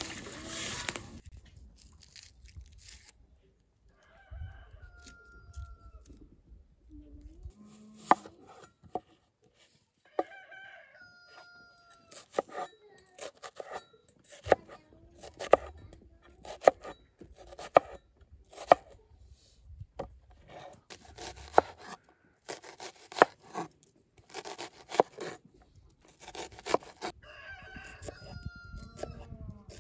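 Cleaver chopping an onion on a wooden board: sharp knocks, one or two a second, through most of the middle. A rooster crows three times in the background, and water pours into a pot briefly at the start.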